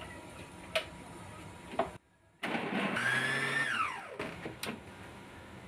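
Electric mixer grinder running with its small chutney jar grinding raw mango and mint. It is switched off about four seconds in, and its motor whine falls away as it spins down. A few light clicks come before and after.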